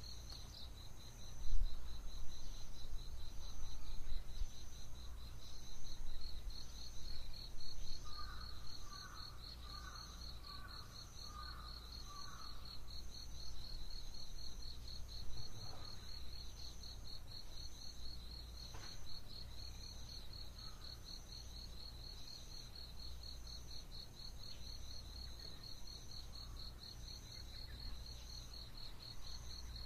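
Early-morning insect chorus: a steady, rapidly pulsing high trill with a higher chirp repeating about every second. A bird gives a run of about six short notes around eight to twelve seconds in, over a low rumble that is louder in the first eight seconds.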